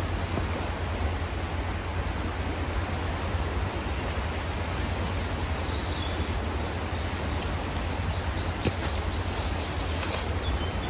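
Steady rain, with a low rumble underneath and a few faint, short high bird chirps.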